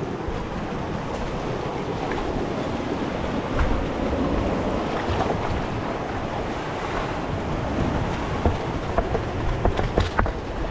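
Sea water washing and surging against a rocky shore in a steady rush, with a few light knocks in the last couple of seconds.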